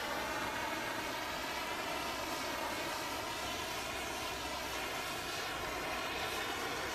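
Handheld propane torch burning with a steady hiss, its flame passed over bare wood to scorch it as a finish.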